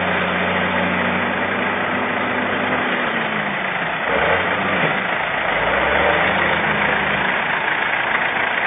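A large modern tractor's diesel engine running, with its note steady at first, then wavering and dropping lower from about three to seven seconds in as it puts out a puff of black exhaust smoke under load. A constant hiss runs underneath.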